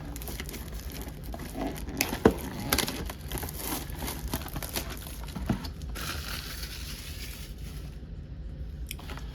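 Plastic shrink-wrap being torn and crinkled off a cardboard trading-card box, with irregular crackles and a sharp snap about two seconds in. The crinkling dies down after about six seconds.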